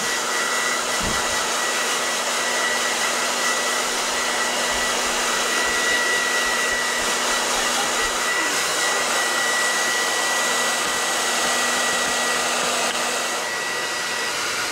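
Hair dryer running on high, a steady rushing blow with a thin high whine, switched off at the very end.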